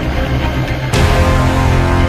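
Loud background music, with a change in its sound about a second in.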